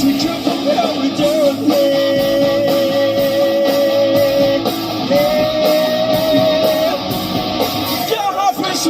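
Rock band playing an instrumental break between verses, a guitar-led lead line holding long sustained notes over the band.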